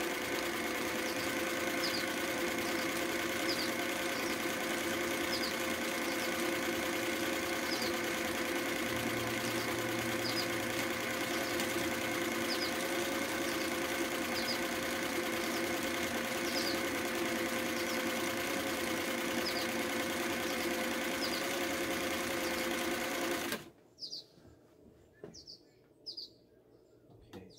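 Singer 319W zigzag sewing machine running steadily at speed, sewing a cam-driven pattern stitch with a steady hum, then stopping abruptly near the end. Small birds chirp briefly and repeatedly throughout, heard clearly once the machine stops.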